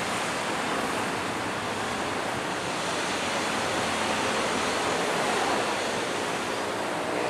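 Steady, even rushing noise of background traffic and wind, with no distinct clanks, horn or voices.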